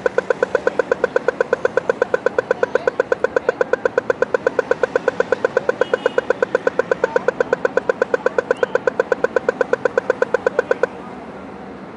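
Pedestrian crossing signal beeping rapidly and evenly, about six short beeps a second, over a steady hum of background traffic; the beeping cuts off suddenly near the end.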